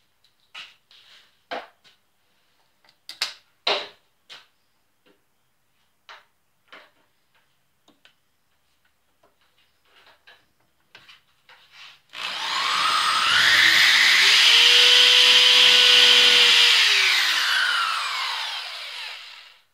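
Small knocks and clicks of a terminal block being handled and held against the machine's cover panel. About twelve seconds in, a handheld power drill spins up with a rising whine and runs steadily for about five seconds as it drills a bolt hole through the panel. It then winds down with a falling whine near the end.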